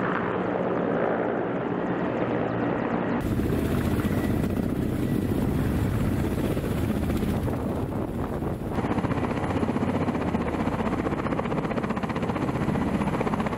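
Several Kamov Ka-52 coaxial-rotor attack helicopters flying and hovering close by, a steady, dense rotor chop. The sound changes abruptly twice, about three seconds in and about nine seconds in, where different shots are cut together.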